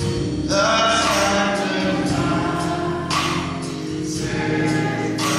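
Gospel music with choir singing over sustained accompaniment.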